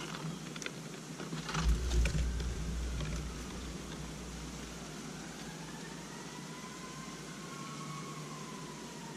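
A few light clicks and a low thump about two seconds in, then a distant siren wailing slowly up and down through the rest.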